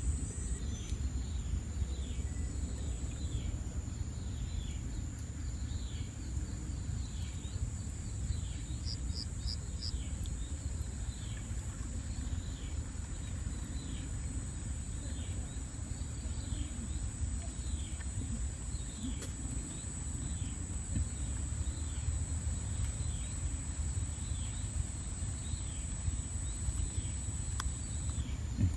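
Rural insect chorus: a steady high-pitched insect drone with an animal's short, falling call repeated about once a second, over a low rumble.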